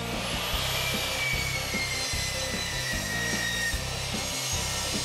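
Sliding compound miter saw running and crosscutting a wide wooden board to length: a steady whirring rush, with a whine that slowly falls in pitch over the first few seconds as the blade works through the cut.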